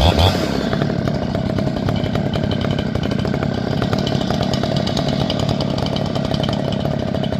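Two-stroke chainsaw running steadily while cutting firewood, with a short louder burst right at the start.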